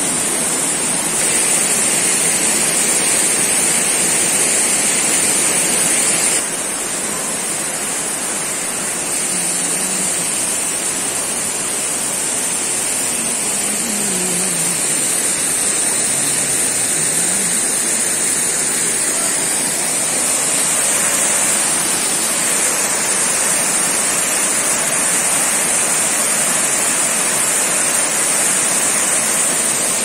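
Steady rushing roar of a tiered mountain waterfall cascading over rock, dropping a little in level about six seconds in.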